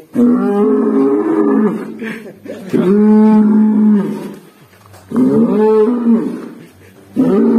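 Black bull calling in loud, pitched moos, four in a row, each one to two seconds long, the last starting near the end.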